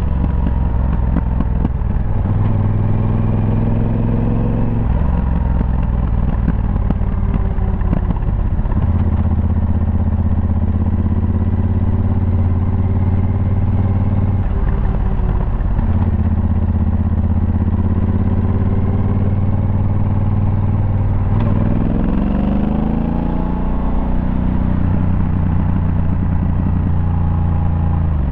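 Yamaha Super Ténéré's parallel-twin engine heard onboard while riding, running steadily with throttle changes every few seconds. About three-quarters of the way through the revs drop, then climb steadily.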